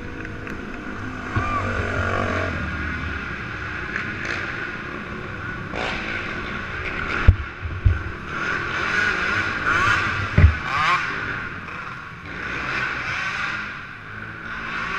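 450-class racing quad ATV engines revving, their pitch rising and falling as the quads race around the dirt track. A few sharp thumps come about halfway through.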